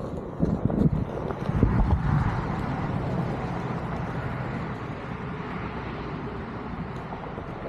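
Onewheel electric board rolling over a dirt trail: a few sharp thumps from bumps in the first two seconds, then a steady rumble of the tyre on the ground with a faint electric-motor whine that slowly drops in pitch.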